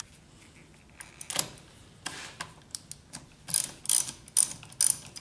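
Ratchet wrench with a 10 mm socket clicking as it loosens the car battery's terminal bolt: a few separate clicks, then a quicker run of clicks near the end.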